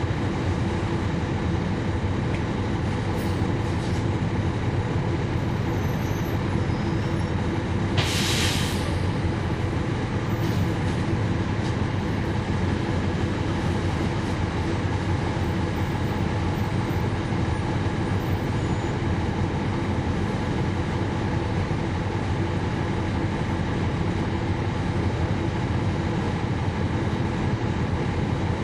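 Inside the cabin of a 2011 NABI 416.15 (40-SFW) transit bus, its Cummins ISL9 inline-six diesel engine running steadily. A short hiss comes about eight seconds in.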